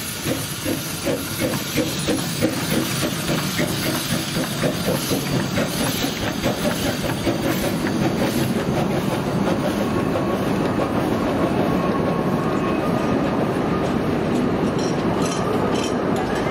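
Narrow-gauge steam locomotive chuffing as it pulls a train away, its exhaust beats coming faster over the first several seconds. The train then runs on with a steady rolling noise, with rail-joint clicks near the end.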